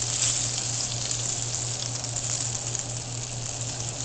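Breaded tilapia fillets pan-frying in a skillet, just turned onto their second side: a steady sizzle.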